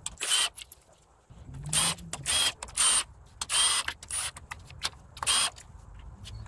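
Cordless Milwaukee FUEL impact tool running in short, loud bursts, about seven over five seconds, as it spins out the bolts of a timing chain tensioner on a Chrysler Pentastar 3.6L V6.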